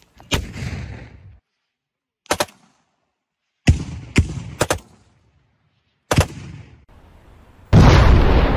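Single rifle shots, about eight sharp cracks fired singly and in quick pairs, then near the end a much louder blast from a tripod-mounted launcher firing, which fades out slowly.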